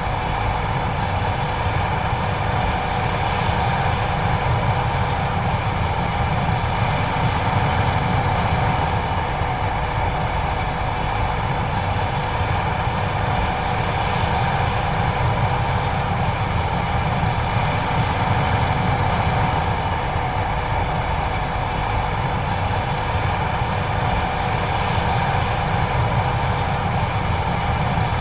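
John Deere 9570STS combine running steadily while harvesting corn: a continuous mechanical drone from the engine and threshing machinery, with a constant whine over it.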